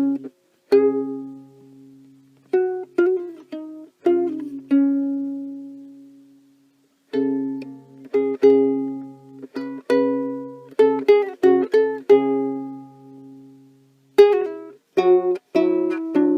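Solo ukulele playing an instrumental passage: single plucked notes and quick runs of picked notes, each ringing out and fading, with a few short pauses between phrases.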